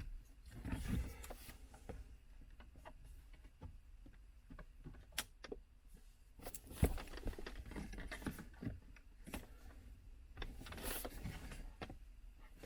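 Scattered light clicks and knocks of small parts being handled, with one sharper knock about seven seconds in.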